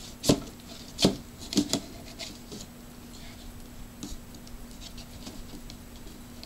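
Hands handling a boxed toy's cardboard packaging: a few sharp knocks and taps in the first two seconds, then lighter scattered ticks and scratching.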